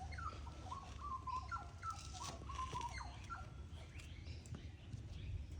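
Australian bush birds singing: one bird gives a run of clear, warbling notes that jump and slide between pitches for the first three seconds or so, with fainter high chirps from other birds, over a steady low rumble.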